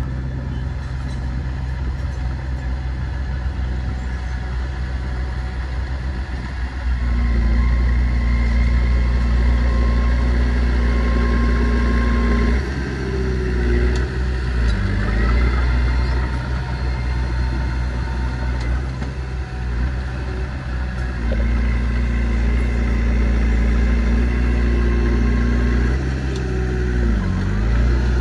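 Diesel engine of a small crawler bulldozer working as it pushes soil, running up to higher revs about 7 seconds in and again about 21 seconds in and easing back between. Twice its note briefly dips in pitch and recovers.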